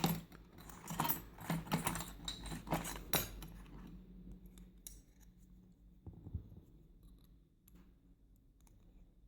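Small metal clicks and clinks of a disassembled padlock's lock core and parts being handled, a quick run of them in the first few seconds, then a few fainter, sparser clicks.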